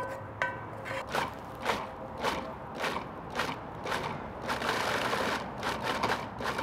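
Food processor pulsing chunky bacon jam to break it down: short bursts of the motor about twice a second, then running steadily for about two seconds near the end.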